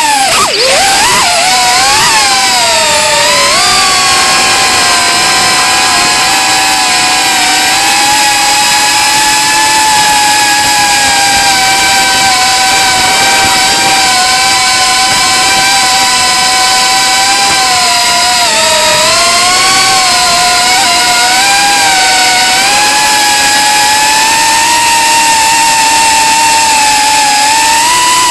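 FPV drone's brushless motors and propellers whining in flight, the pitch wavering up and down with the throttle and dipping sharply then rising again about a second in. The owner says the motors make a strange sound.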